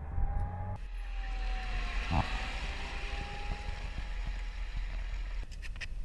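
Stryker eight-wheeled armoured vehicle driving: a low engine rumble with a steady whine that sags slightly in pitch, and one thump about two seconds in. Near the end, a rapid string of gunshots begins.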